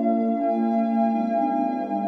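Background ambient music of held, sustained chords, moving to a new chord about half a second in and again past the middle.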